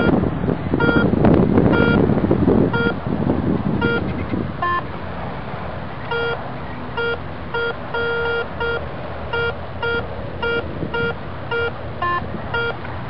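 Garrett Ace 250 metal detector beeping as the coil is swept back and forth over a buried target: short beeps, about two a second, with a couple at a different pitch. A loud rustling noise fills the first few seconds.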